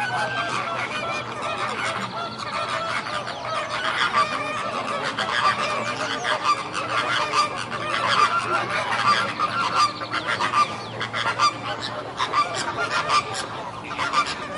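A flock of birds calling, with many short calls overlapping continuously.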